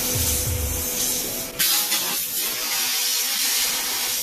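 A can of R134a refrigerant with ester oil charge blowing off through a stripped thread at the charging fitting: a loud, steady spray hiss that jumps up sharply about one and a half seconds in.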